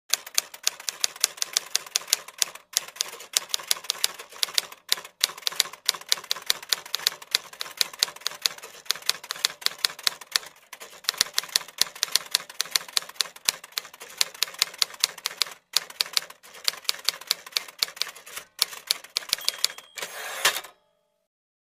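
Typewriter typing sound effect: rapid keystroke clicks, several a second, broken by a few short pauses as the text is typed out, stopping near the end.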